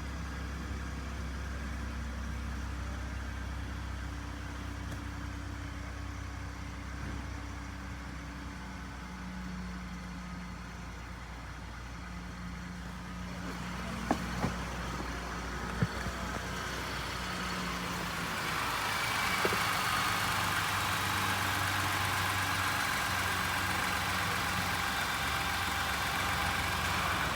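Ford 3.5 EcoBoost twin-turbo V6 idling steadily on its first run after a timing chain replacement. A few short knocks come near the middle, and a hiss grows in from about two-thirds of the way through.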